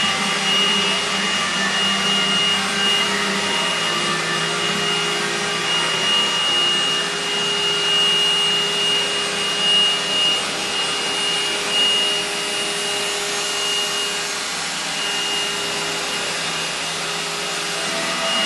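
Robot vacuum cleaner running: a steady noise with a thin high whine held over it.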